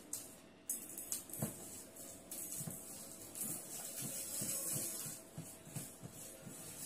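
Soft taps and handling noises of small craft materials, beads and a glue bottle, on a table: a run of light knocks a few times a second, over a faint hiss.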